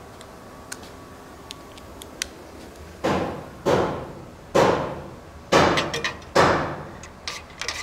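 Hand tools working on exhaust manifold bolts under a pickup: five loud knocks, each with a short ringing tail, then a quick run of small ratchet clicks near the end.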